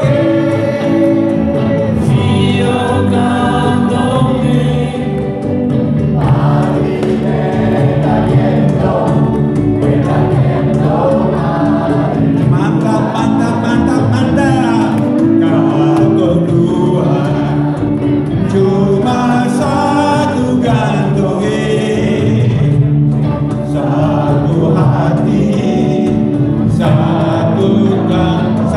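A live band plays through a PA, with electric guitars and a cajon under a male lead singer at the microphone. It is steady, loud dance music with singing throughout.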